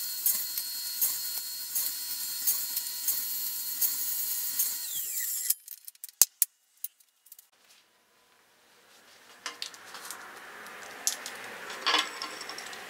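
Table saw running while short crosscuts are made on a crosscut sled, the cuts coming about twice a second; about five seconds in the motor is switched off and its pitch falls as it stops. After a short near-quiet gap, a faint steady hiss with a few light clicks near the end.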